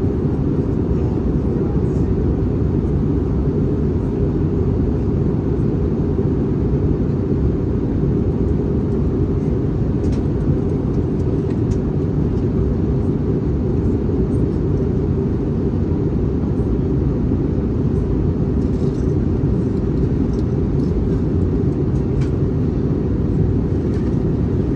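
Steady low rumble of engines and airflow heard inside the cabin of an Airbus A321neo in flight, with a few faint clicks.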